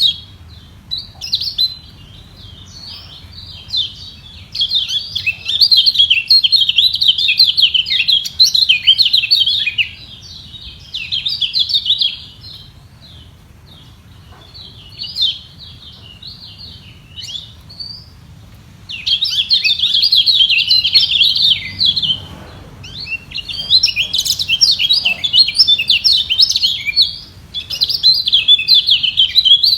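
Kecial kuning (yellow white-eyes) counter-singing: loud bursts of rapid, high twittering song several seconds long, broken by short lulls, as the birds compete by voice.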